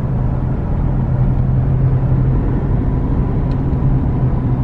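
Car running, heard from inside the cabin: a steady low hum of engine and road noise.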